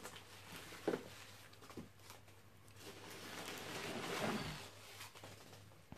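Faint handling of packaging: a sharp click about a second in, then a rustle that builds and fades as packing material and containers are rummaged through.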